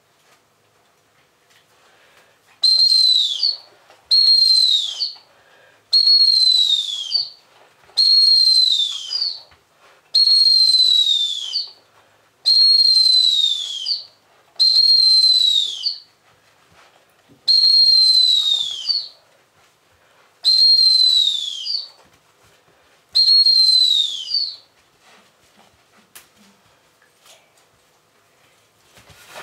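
Dog training whistle blown in ten long blasts, each a steady high note that drops in pitch as it ends, spaced a second or two apart. The blasts are the whistle cue for a Labrador retriever puppy to search a small area for treats.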